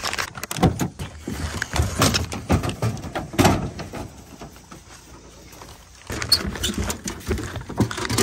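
A run of knocks and clatters: hounds scrambling out of an aluminium dog box in a pickup bed, and the metal door latch of the box being worked near the end. It goes quieter for a couple of seconds in the middle.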